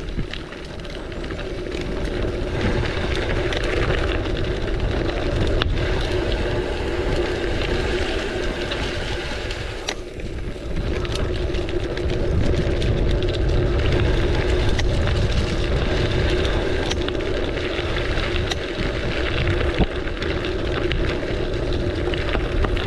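Steady rush of wind on the microphone over the rolling noise of a gravel bike's tyres on a dirt trail, with scattered small knocks and rattles from the bike.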